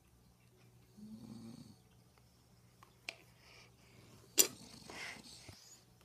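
A sleeping man snoring: one short, low snore about a second in. Then a click, and a sharp knock followed by rustling just past the middle.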